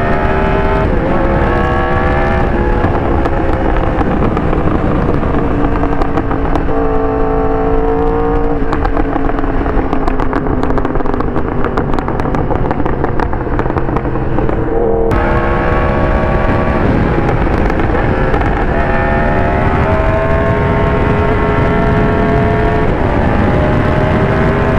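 Yamaha R1 inline-four engine under way, its revs stepping up and down through gear changes. In the middle it winds down off the throttle with a run of crackling exhaust pops, then pulls up through the gears again.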